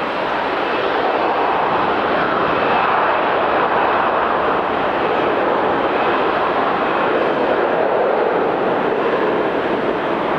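Jet airliner engines running: a steady rushing noise with a faint high whine on top, growing a little louder over the first couple of seconds and then holding.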